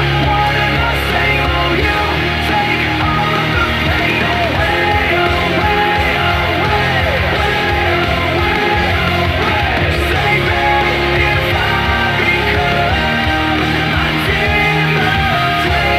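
Loud rock music with a singer, playing steadily throughout as a soundtrack.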